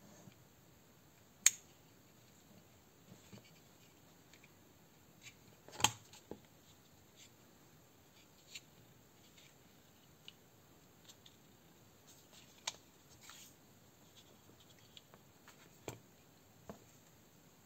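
Scattered small clicks and taps from handling an electric airsoft pistol's frame and its wiring, with two sharp louder clicks about a second and a half in and about six seconds in.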